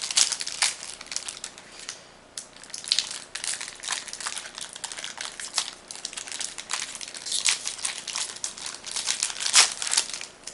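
Foil wrapper of a Magic: The Gathering booster pack crinkling and tearing as it is opened by hand: an irregular run of sharp crackles, loudest shortly before the end as the foil is pulled apart.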